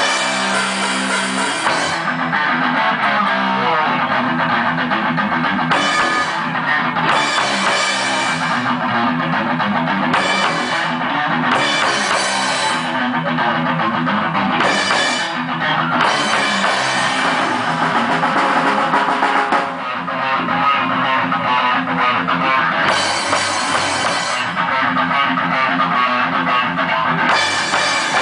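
Live rock band with electric guitar, bass guitar and drum kit playing. The cymbals come in and drop out in stretches every few seconds.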